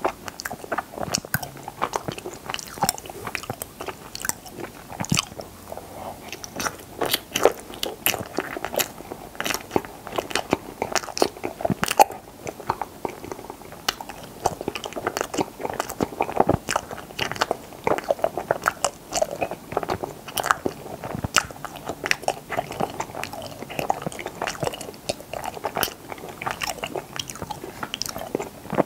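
A person chewing and biting strawberry chaltteok ice, frozen ice cream wrapped in rice cake, close to the microphone. The wet chewing is full of sharp, irregular mouth clicks and smacks.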